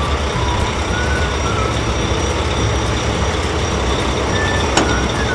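Animated truck engine sound effect: a steady, loud engine rumble with noise over it, a few short high tones now and then, and a sharp click near the end.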